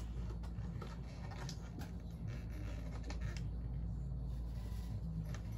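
Faint rustling and a few light clicks of small plastic action-figure accessories being handled and sorted, over a steady low hum.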